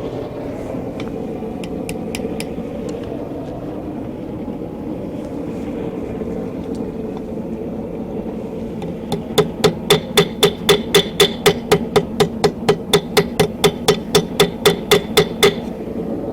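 Blacksmith's hammer striking steel on an anvil in a fast, even run of about five ringing blows a second. The run starts about nine seconds in and lasts some six seconds, after a few light taps earlier. A steady background noise runs underneath.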